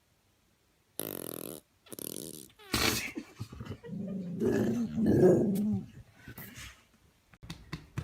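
A dog growling and whining in a string of short pitched sounds, starting about a second in.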